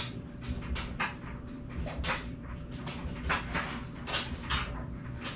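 Short breathy puffs, about two or three a second, like panting, over a low steady hum.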